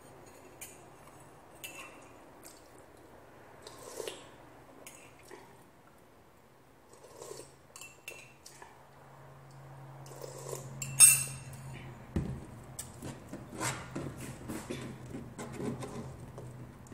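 A metal spoon clinking against a ceramic mug several times, each a short ringing clink, with the loudest, sharpest clink about eleven seconds in; a run of smaller clicks and taps follows toward the end.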